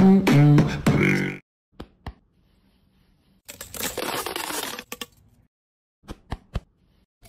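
A short pitched musical phrase with a voice-like tone, then a few sharp clicks and about a second and a half of scraping rustle from handling food, with more clicks near the end.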